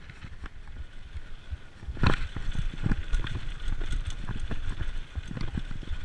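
Mountain bike running fast down a dirt singletrack: a low rumble of tyres and wind with frequent irregular knocks and rattles from the bike. The loudest jolts come about two seconds in and again just before three seconds.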